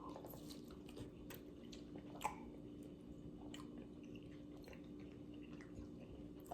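A person chewing food close to the microphone, with scattered small mouth clicks, over a faint steady hum.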